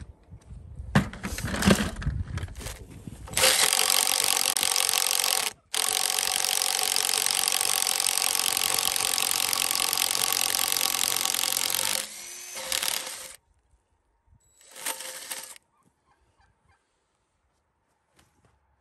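Cordless impact driver driving into a wooden fence post: a few knocks, then one long steady run of about eight seconds with a split-second break, a weaker stretch, and a short last burst.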